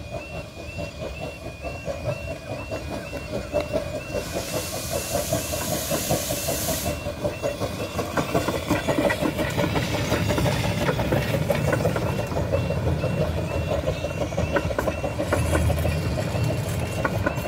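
Level crossing warning alarm sounding in a steady repeating pattern while a miniature steam train of the Romney, Hythe & Dymchurch Railway approaches. About four seconds in there is a loud hiss of steam lasting some three seconds. Then the locomotive and its coaches run over the crossing, with wheel clatter growing louder.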